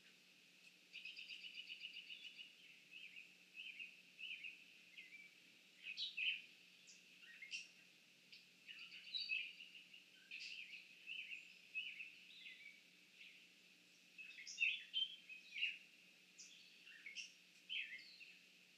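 Several songbirds singing and calling: a fast trill of repeated high notes about a second in, then a string of short chirps and whistles, some sliding down in pitch. A faint steady low hum runs underneath.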